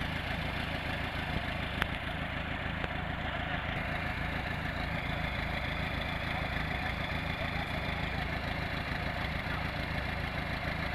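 Farm tractor's diesel engine idling steadily, with a single sharp click a little under two seconds in.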